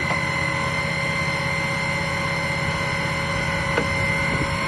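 Truck-mounted well-drilling rig running under hydraulic operation, with a steady engine-and-pump drone and a steady high whine, as a hydraulic cylinder on the mast extends. A light click a little before the end.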